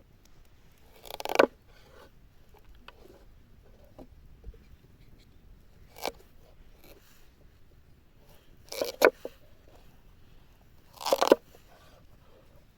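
Four short crunching sounds a few seconds apart, the second a single quick snap, the third a double crunch and the last the loudest.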